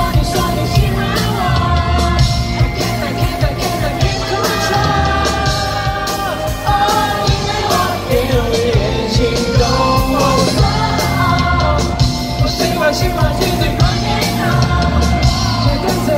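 Live pop-rock band playing with drums, bass and guitars while a voice sings the melody.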